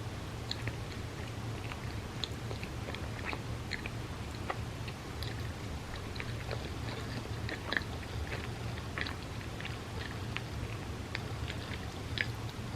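Close-miked chewing of bagel with cream cheese: many small wet mouth clicks and smacks, irregular, over a steady low hum.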